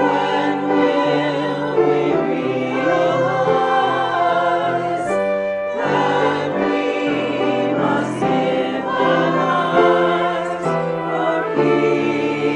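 A choir singing a hymn with accompaniment, held sustained chords.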